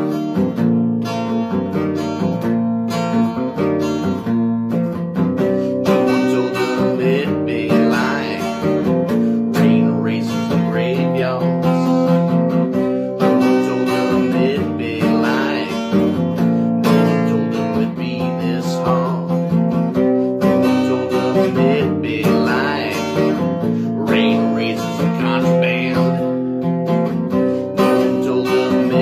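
Acoustic guitar played steadily, strummed and picked, with high notes that bend in pitch every few seconds.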